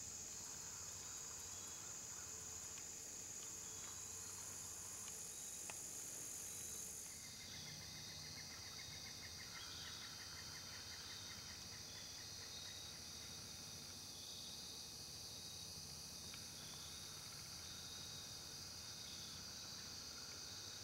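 Faint, steady chorus of crickets and other insects, a continuous high trill. About seven seconds in it shifts abruptly a little lower, and a softer pulsing trill sounds lower down for a few seconds.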